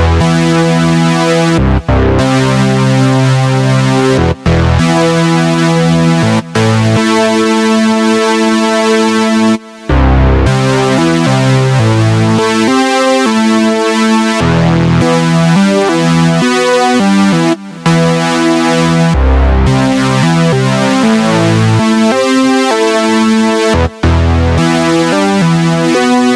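Synthesizer keyboard playing sustained chords that change every second or so, broken by a few brief cut-outs.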